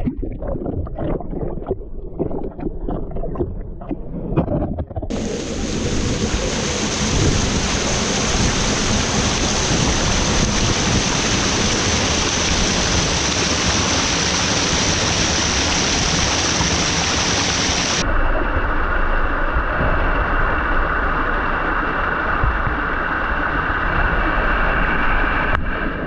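Rushing water. At first it is uneven and splashy, then about five seconds in it turns suddenly into a loud, steady, full rush, and it changes tone and becomes duller about eighteen seconds in.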